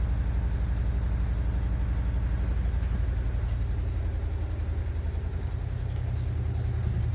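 A steady low mechanical hum, like a small motor running.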